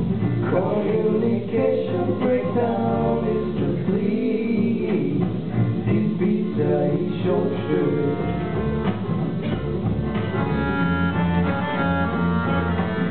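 A small acoustic band playing live: a male voice singing over upright double bass and acoustic guitar.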